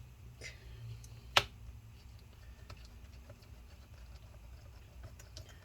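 Small handling clicks from a screwdriver and a laptop's bottom-cover screws, with one sharp click about a second and a half in, over a faint low hum.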